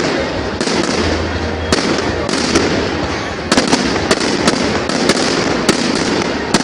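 Fireworks going off: a dense, continuous crackle and rumble of many bursts, with sharp cracks standing out several times a second in places.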